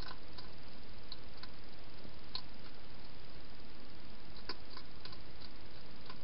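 Wild hedgehog feeding from a bowl inside a plastic feeding box: scattered, irregular small clicks and crunches of chewing, over a steady hiss.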